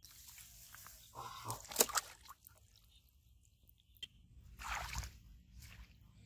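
Water splashing in a plastic basin as a caught fish moves in it, with one sharp slap about two seconds in; a brief rustle follows near the end.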